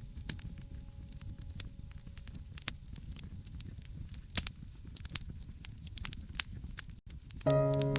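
Fireplace fire crackling: irregular sharp pops and snaps over a low rumble of burning. Near the end, after a momentary dropout, a soft background music chord comes in.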